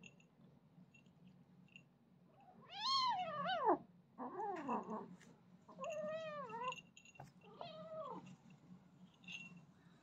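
Kitten meowing four times. The first meow, about three seconds in, is the longest and loudest and wavers in pitch; three shorter meows follow.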